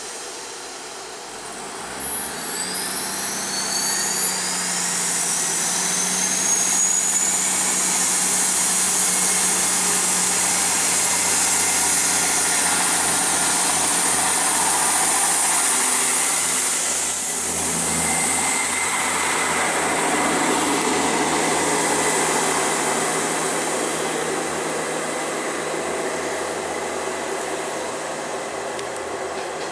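Class 158 diesel multiple unit at the platform: a thin, high rising whine in the first few seconds over the steady hum of its diesel engines. About 17 seconds in the engines power up as the unit pulls away, and the sound slowly fades toward the end.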